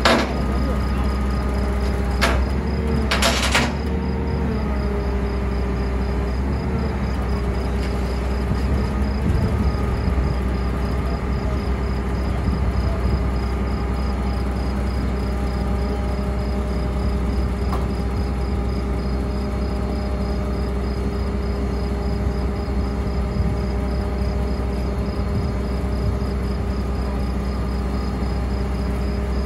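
Scania 113 truck's diesel engine running steadily to drive its hydraulic crane, a constant drone with a held hum. There are a couple of sharp metallic knocks in the first few seconds as the chained ball mill is lifted.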